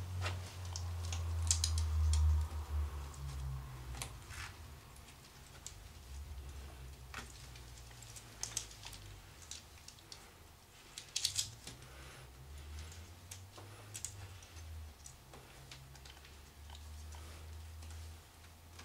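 Clothing rustling and small sharp clicks as a jacket's buttons are undone by hand, over a low steady hum.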